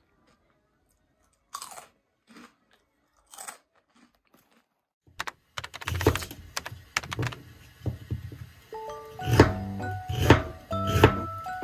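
A few crunches of a puffed snack being bitten and chewed. Then, from about five seconds in, a kitchen knife slices lotus root on a bamboo cutting board in a series of sharp knocks over background music.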